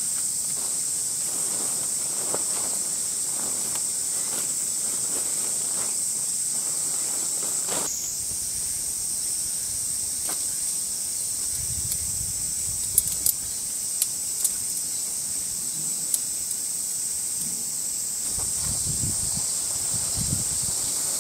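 Steady high-pitched drone of cicadas, with soft rustling of a ground sheet and tent fabric being handled and a few sharp clicks past the middle.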